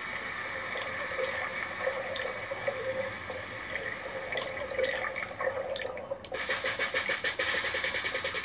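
Underwater bubbling and rushing-water sound effects played through a TV's speakers. About six seconds in, a fast, even pulsing starts on top of them.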